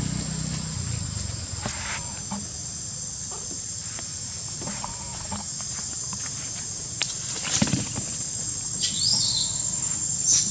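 Steady high-pitched insect drone, with scattered short clicks and rustles and a few brief high chirps near the end.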